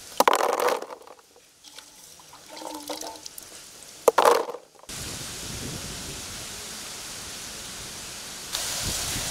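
Water poured onto cut vegetables in a wide metal plate, heard as two short splashes: one just after the start and one about four seconds in. A steady outdoor background hiss follows.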